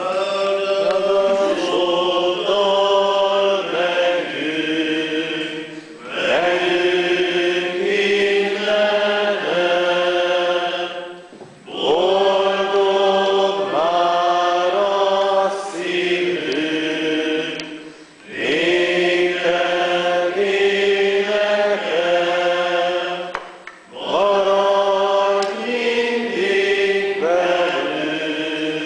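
A church congregation singing a slow hymn together, sustained notes moving step by step, line by line with a short breath pause between phrases about every six seconds.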